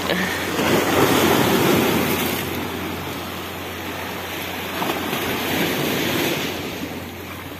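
Sea waves washing against rocks, the rush of surf swelling about a second in and again around five seconds in.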